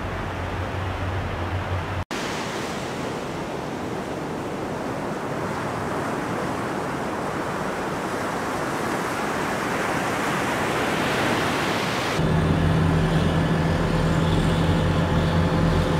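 Surf breaking on a sandy beach, a steady rush that slowly grows louder. It is cut in between engine sounds: a tracked amphibious vehicle's engine hums at idle until an abrupt cut about two seconds in, and a low engine hum returns suddenly over the surf about twelve seconds in.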